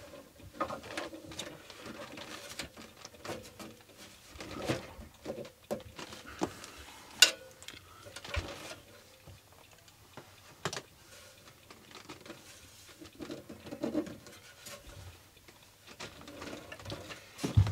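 Handling noises from the painted steel case of a vintage valve signal generator being turned over and shifted on a workbench: scattered knocks, scrapes and clicks. A sharp clack comes about seven seconds in, another near eleven seconds, and a dull thump near the end.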